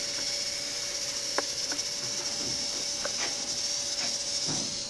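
Small wheeled robot's drive motors whining steadily as it drives across the maze, the whine dropping away as it stops near the end.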